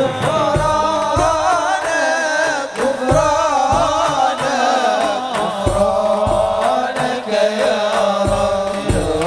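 Sholawat, Arabic devotional singing: a voice winding through an ornamented, wavering melody over deep drum beats.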